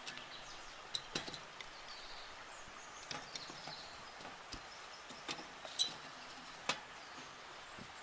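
Faint steady rush of a river, with a handful of sharp clicks and knocks scattered through and a few faint high chirps.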